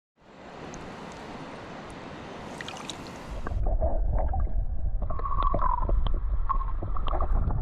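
Rushing river water as a steady hiss. About three and a half seconds in, it changes abruptly to a louder, muffled low rumble with gurgling, as of water churning close against the microphone.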